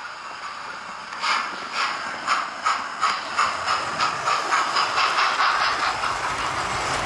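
Hornby TTS sound decoder in an OO gauge GWR Hall class 'Ketley Hall' model steam locomotive playing steam chuffs through the model's small speaker. The chuffs start about a second in and quicken as the locomotive pulls away.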